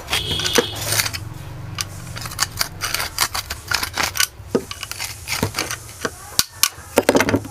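Steel pliers working on the rusted steel shaft and ball bearing of a monoblock water-pump rotor: irregular metal-on-metal clicks, snaps and short scrapes, over a steady low hum.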